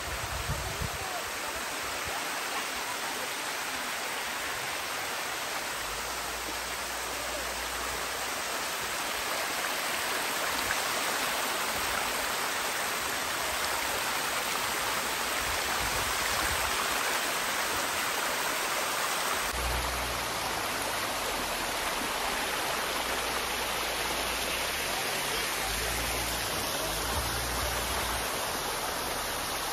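Small waterfall spilling down rock ledges: a steady rush of running water.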